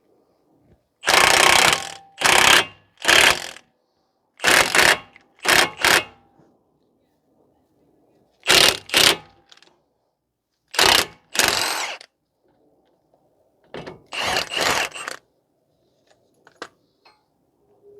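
Impact wrench hammering in about a dozen short bursts, driving the nut on a wheel stud installer tool to pull a new wheel stud through the hub flange until it seats flush.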